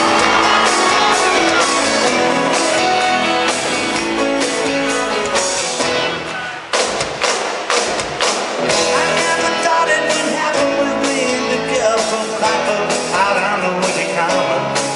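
Rock band playing live in a large hall, the instrumental lead-in before the vocals begin. About six and a half seconds in the sound dips briefly, then the band comes back in with a run of sharp hits.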